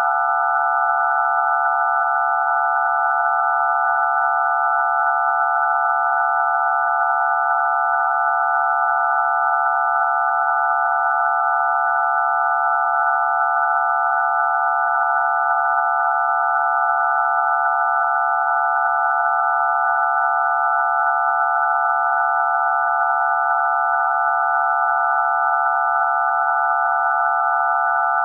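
Telephone DTMF tones for digits 0 to 9 mixed into one steady, unchanging chord of pure tones, a cluster of low and high tones sounding together.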